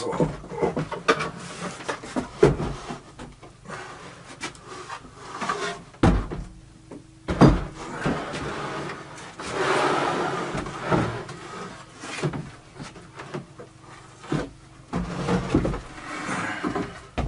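Homemade plywood table saw cabinet being tipped over on a workbench: a run of wooden knocks with two heavy thumps about six and seven and a half seconds in, and stretches of plywood scraping and rubbing against the bench.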